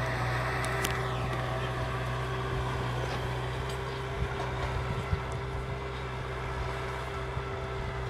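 Kubota M6040 SU tractor's four-cylinder diesel engine running steadily under load while ploughing dry ground, its low drone slowly fading as the tractor pulls away.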